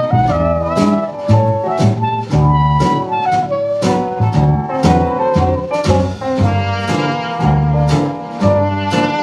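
Background music in a jazz style, with a bass line moving under the melody and a steady beat of about two hits a second.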